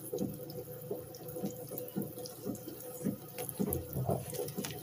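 Wet squishing as a pickle is squeezed and torn apart by gloved hands in a plastic bowl, with irregular soft squelches over a steady low hum.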